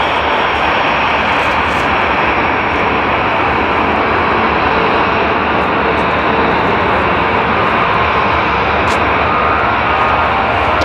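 Steady, loud jet noise from a Lufthansa Airbus A340-313's four CFM56 turbofans at high thrust as the airliner rolls down the runway.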